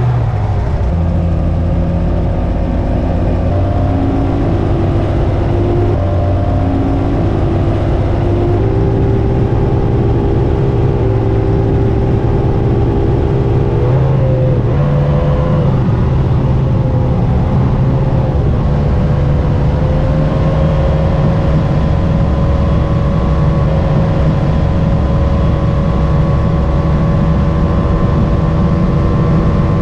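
A Mercury 3.0-litre EFI V6 outboard drives a ski boat at speed. The engine's pitch climbs over the first several seconds, then holds at high revs over the rush of water against the hull.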